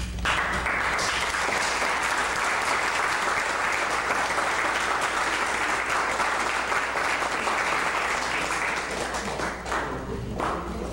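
Audience applauding. It starts all at once and dies away near the end.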